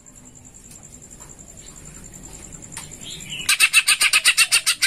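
Caged greater green leafbird (cucak ijo) singing: a short note, then near the end a loud rapid chattering series of about ten chirps a second for over a second. A faint steady high tone sounds throughout.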